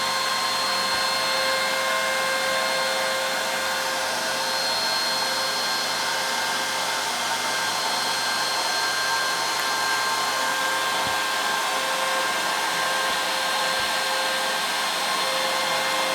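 CNC router spindle running steadily, a constant whine with several held tones over a hiss, as a 1/16-inch ball-nose bit makes the slow finishing passes of a 3D relief carving in wood.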